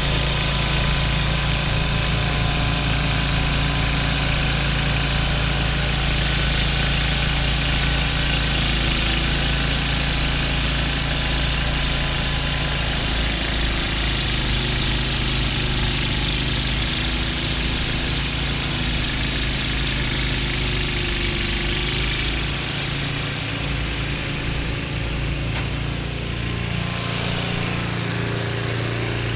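Snowblower's small gasoline engine running steadily under load.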